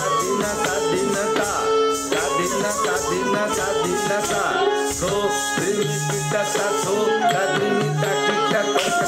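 Odissi dance music for a Pallavi in raga Charukeshi: a gliding melodic line over steady drum strokes, with a continuous jingling shimmer of small percussion.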